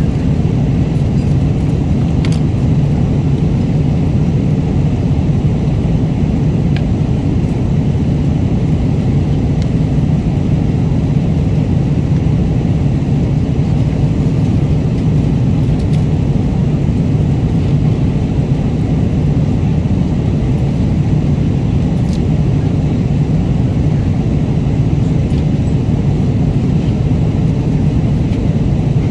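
Steady, loud airliner cabin noise: an even, low rush of engine and air noise that does not change, with a few faint small clicks.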